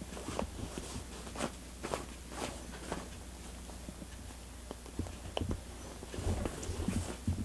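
Cat digging at a plush fabric cat bed with its front paws: a scratching rustle of claws on cloth about twice a second. A low rumble comes in during the last two seconds.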